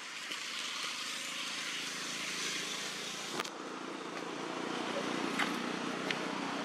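Steady outdoor background hiss, with a sharp click about three and a half seconds in and two fainter ticks later.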